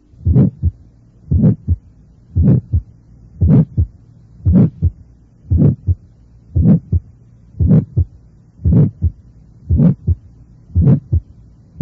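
Recorded heart sounds with an innocent systolic murmur, played at about one beat a second. Each beat is a first heart sound followed by a medium-pitched murmur that fills only the first half of systole, then a short, distinct second heart sound.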